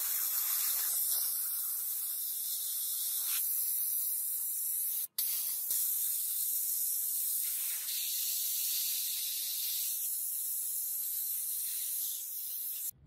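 Sandblaster blasting abrasive grit onto a metal axe head: a steady, high hiss of compressed air and sand, with a very short break about five seconds in, cutting off suddenly near the end.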